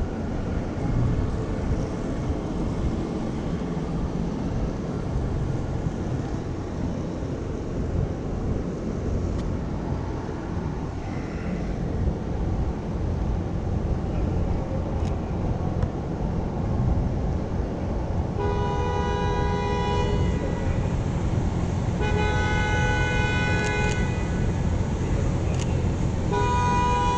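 Steady city traffic rumble, with a vehicle horn honking in three long blasts of about two seconds each in the last third.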